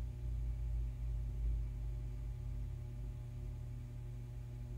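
Low, wavering rumble with a steady hum over it, carried on the Falcon 9 first stage's onboard video feed as the booster coasts down through the atmosphere.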